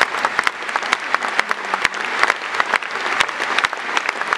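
Large crowd applauding: many hands clapping in a dense, steady stream.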